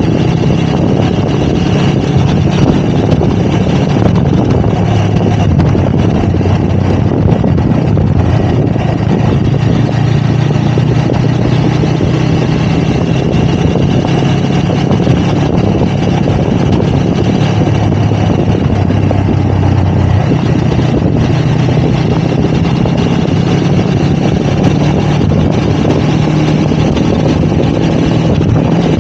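Motorcycle engine running steadily while riding, its pitch holding fairly even throughout.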